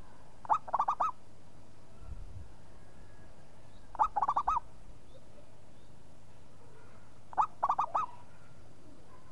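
Zebra dove (perkutut) cooing three times, about every three and a half seconds. Each phrase is an opening note followed by a quick run of three or four rolling coos.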